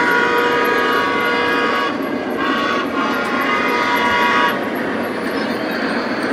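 Lionel Southern Pacific AC-9 O-gauge model steam locomotive's electronic whistle blowing, with a short break about two seconds in, stopping about four and a half seconds in, over the steady running noise of the train on the track.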